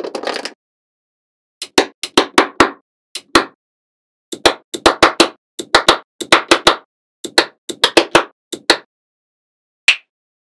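Small neodymium magnet balls snapping onto one another, one at a time, in a series of sharp clicks. The clicks come in quick bunches of two to six, about twenty in all, after a brief rattle at the start.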